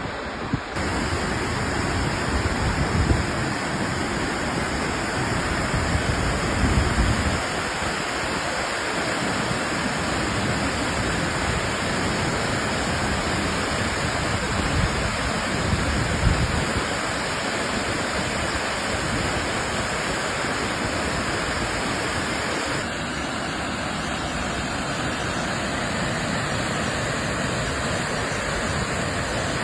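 Waterfall rushing: a steady, full wash of falling water, with irregular low rumbles through the first several seconds and again about halfway through.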